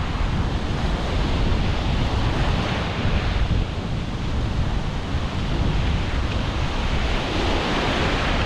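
Sea surf washing onto the beach, with wind rumbling on the microphone.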